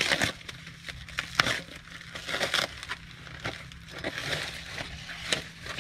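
White packing wrap being torn and pulled off a metal exhaust pipe: irregular crinkling and rustling with scattered crackles, and a sharp click about one and a half seconds in.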